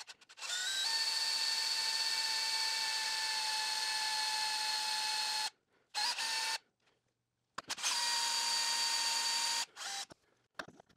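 Drill running a small bit through a right-angle adapter, drilling into a metal lathe carriage. It gives a steady motor whine that rises in pitch as it spins up: one run of about five seconds, a short burst, then a run of about two seconds.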